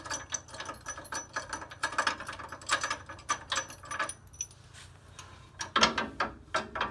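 Spring installation tool clinking and rattling against the front coil spring and lower control arm of a 1979–2004 Mustang as it is worked out by hand: a quick run of light clicks and clinks that eases off about four seconds in and picks up again near the end.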